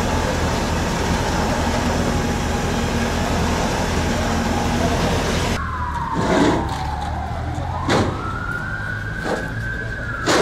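A steady engine hum and street noise, then an emergency-vehicle siren wailing slowly, falling in pitch and then rising again. A few short knocks sound over it.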